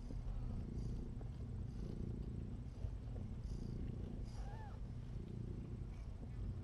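A nursing mother cat purring steadily as her newborn kittens feed. There is a faint short squeak about halfway through.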